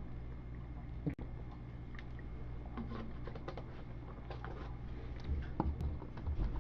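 Light scattered clicks and taps of a computer keyboard over a low steady hum, with one sharper click about a second in and denser clicking in the second half.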